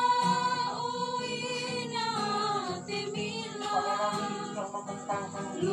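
A group of worshippers singing a hymn together, with long held notes.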